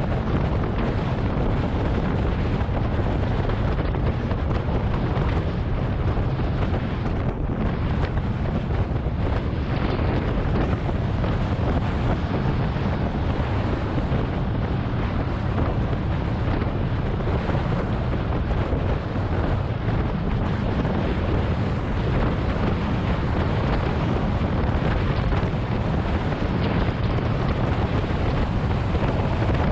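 Steady wind rushing over an action camera's microphone at road-cycling speed of about 30 mph, a constant noise heaviest in the low end.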